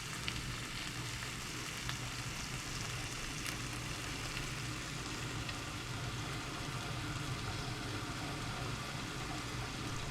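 Pre-cooked chicken pieces sizzling steadily in a frying pan as they are reheated, with a few faint pops.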